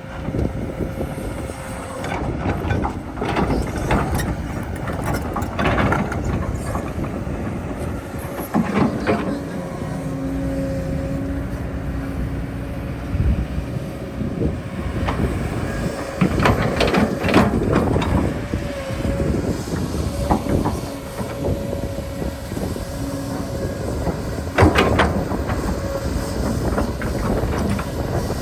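Excavator at work: a machine running steadily with a held whine, broken by repeated clanks and knocks of metal.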